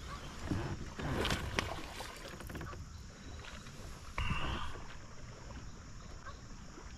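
Water splashing and lapping around a fishing kayak, with a low wind rumble on the microphone and a sharper splash about four seconds in.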